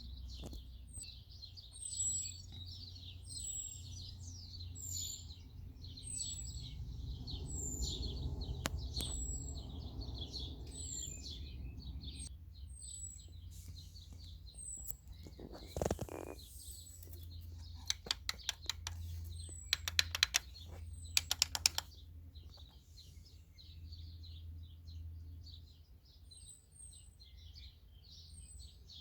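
Birdsong: one bird repeats a short, high, falling chirp about once a second over the twittering of other birds. About two-thirds of the way in comes a quick run of sharp clicks.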